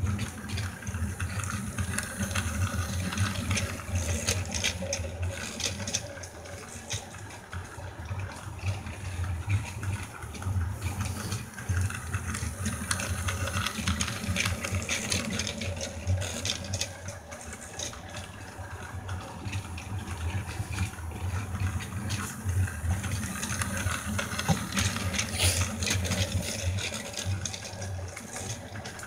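Battery-powered toy freight train running round a loop of plastic track: a steady motor whir with the wheels rattling over the track joints. It grows louder each time the train passes close, about every eleven seconds, three times.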